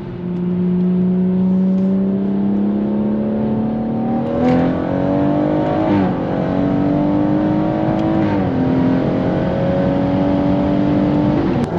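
BMW M140i's B58 3-litre turbocharged straight-six, tuned to about 500 hp with a new exhaust line, pulling hard under acceleration, heard from inside the cabin. Its pitch climbs steadily and drops sharply at each of several upshifts.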